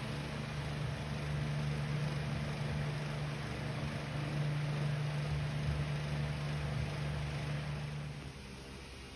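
A steady low hum with a faint hiss above it, easing about once a second, that drops away about eight seconds in.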